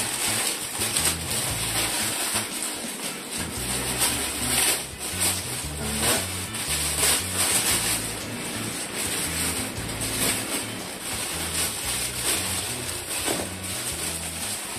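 Bubble wrap and plastic packaging rustling and crinkling as parts of a baby high chair are unwrapped by hand, with irregular crackles throughout.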